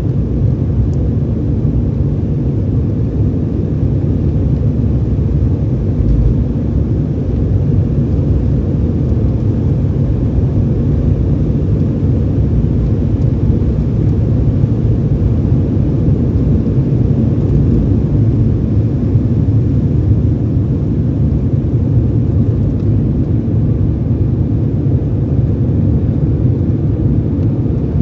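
Jet airliner cabin noise during the takeoff roll and climb-out: the engines at takeoff power with runway rumble, a steady low rumble.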